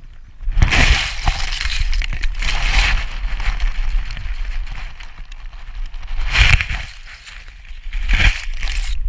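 Tall dry grass rustling and scraping against a GoPro's housing as it pushes through the grass, in several loud crackling surges over a steady low rumble.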